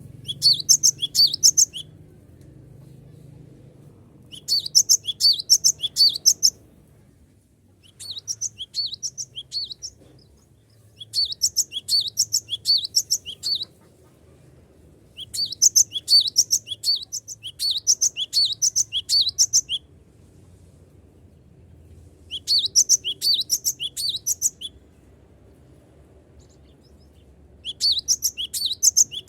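Cinereous tit (gelatik batu) singing vigorously: repeated bursts of rapid, sharp high notes, each burst lasting one to four seconds with short pauses between.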